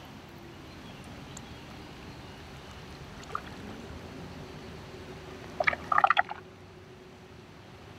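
Quiet lakeside water sounds with a faint steady hum, and a quick burst of short chirping animal calls about five and a half seconds in.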